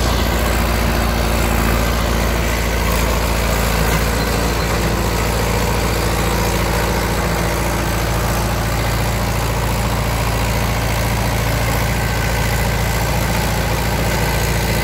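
Mahindra Yuvo Tech+ 575 tractor's diesel engine running steadily under load, driving a Maschio rotavator that is tilling soil.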